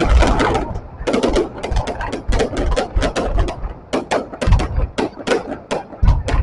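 Fireworks going off: rapid, irregular cracks and pops, several a second, over heavy low booms.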